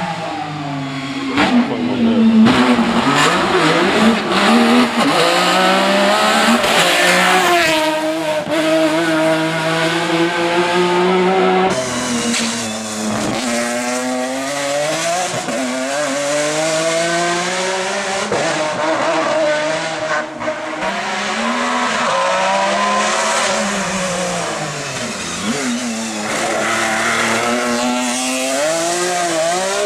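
Ford Mondeo STW touring car's naturally aspirated 2.0-litre V6 racing engine under hard acceleration. Its pitch climbs through the revs and drops sharply several times at gear changes and lifts. The sound changes abruptly about twelve seconds in.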